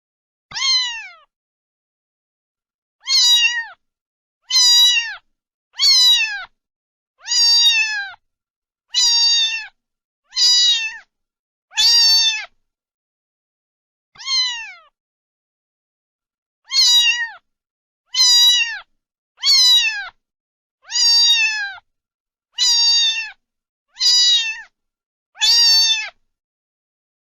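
A cat meowing over and over: about sixteen short, high meows, each falling in pitch at its end. They come one to one and a half seconds apart, with a couple of longer pauses in the middle.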